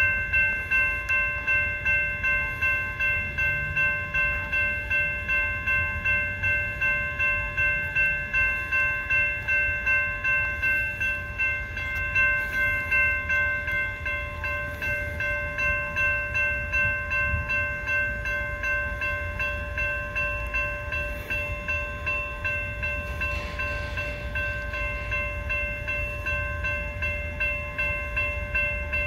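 Railroad crossing warning bell ringing steadily, about two strokes a second, over a low steady rumble.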